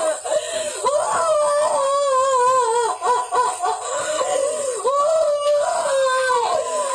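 A woman wailing and sobbing with overwhelming emotion, in long, drawn-out, wavering cries broken by short breaths about every two seconds.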